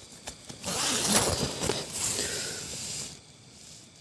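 A click, then rustling and scraping for about two and a half seconds as the shelter is opened to look outside, stopping about three seconds in.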